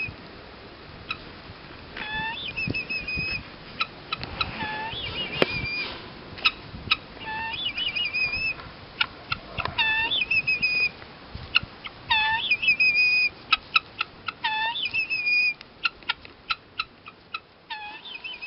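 Guinea fowl calling over and over, a pitched two-part call repeated every second or two, mixed with many short, sharp clicking calls.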